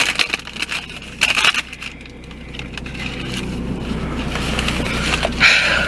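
Close-miked crunching of a hard Doritos Locos taco shell being bitten and chewed: sharp crunches near the start, about a second and a half in, and loudest near the end, with softer chewing between.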